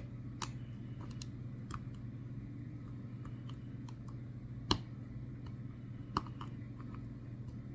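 Faint, scattered clicks of a hook pick and tension wrench working the pin stacks of a Master Lock 6835 padlock, with one sharper click a little past the middle, over a steady low hum.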